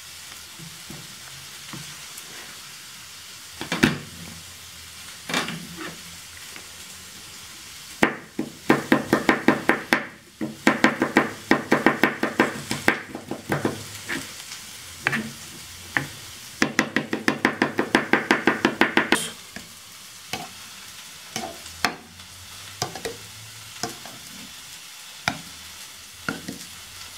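Kitchen knife chopping garlic cloves on a plastic cutting board: a few single cuts, then quick runs of chopping at about four strokes a second, about eight seconds in and again near seventeen seconds. A steady sizzle of cauliflower frying in butter runs underneath.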